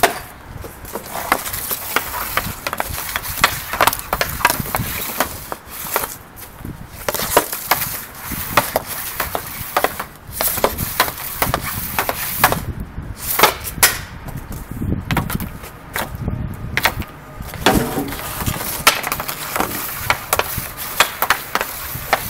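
Hockey stick blade and puck clacking on a shooting pad as pucks are stickhandled and shot: many sharp, irregular knocks and clicks, several a second, with louder cracks here and there.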